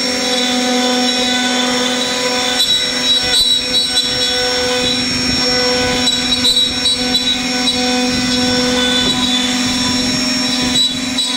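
CNC router spindle running steadily with a constant hum as its bit cuts a groove along a wooden border board. Short bursts of rough cutting noise come about three seconds in, again past the middle, and near the end.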